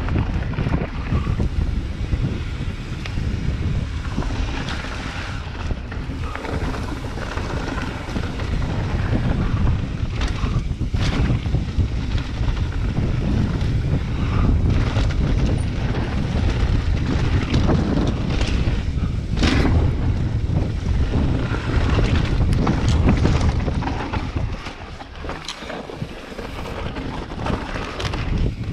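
Mountain bike descending a dry, rocky dirt singletrack: wind buffeting the camera's microphone over tyre noise on dirt and gravel, with scattered clicks and knocks as the bike rattles over rocks. The noise drops for a couple of seconds near the end, then picks up again.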